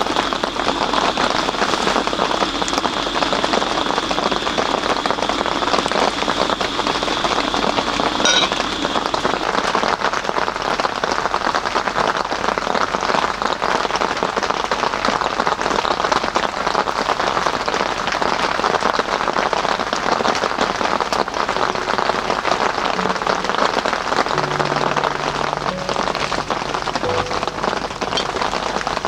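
Steady rain falling, an even hiss of many small drops. A thin high tone holds through roughly the first nine seconds.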